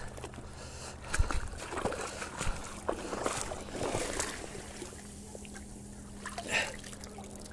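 Shallow seawater sloshing and splashing in small irregular bursts as hands lower and hold a sea bass in the water to release it.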